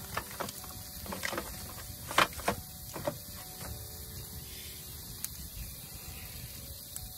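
Wood fire crackling and popping under a pan, with scattered sharp pops over a steady low rumble. The loudest pops come about two seconds in.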